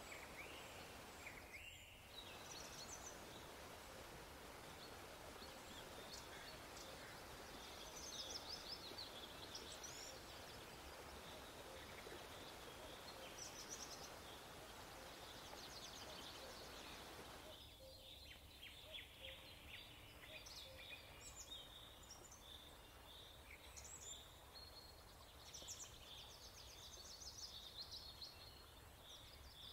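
Faint birds chirping over a steady background hiss, many short high chirps coming in quick runs; the hiss drops a little past halfway while the chirping goes on.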